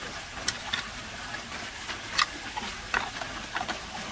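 Light, sharp clicks and taps of a small plastic spoon against a plastic spice box as seasoning is scooped out and sprinkled, heard several times over a steady background hiss.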